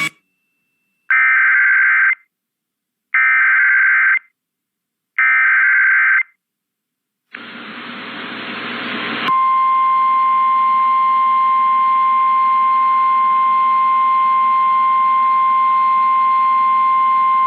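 Emergency Alert System broadcast: three short bursts of digital header data screech out about a second apart, then a burst of radio hiss rising in level, then a steady, piercing alert tone held for about nine seconds, the signal that a warning message follows.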